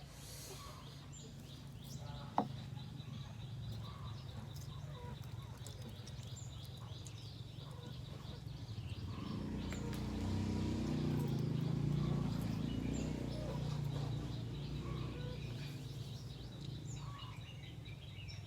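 Quiet outdoor background with scattered bird chirps over a steady low hum. The hum swells for a few seconds midway and then fades back, and there is one sharp click a couple of seconds in.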